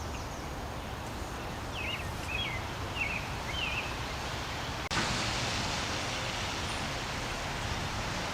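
Outdoor ambience of leaves rustling in a breeze, with a small bird giving a few short chirps about two seconds in. Just before the five-second mark the rustling steps up abruptly and stays louder.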